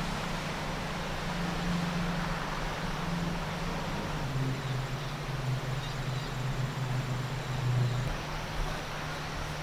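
A steady low engine or motor hum over an even rushing noise. The hum drops in pitch about four seconds in and rises again near the end.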